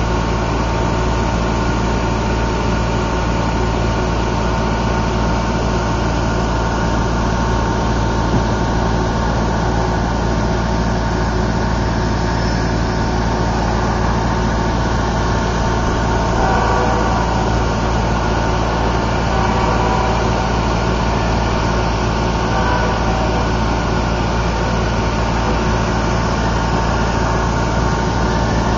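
A steady, unchanging engine-like hum with a low rumble and a constant tone, with faint wavering notes rising over it about halfway through.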